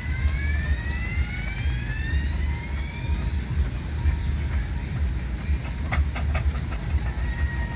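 Steam traction engine running as it drives slowly along, a heavy low rumble with some hiss. A rising whine sounds over the first three seconds, and a few sharp clicks come about six seconds in.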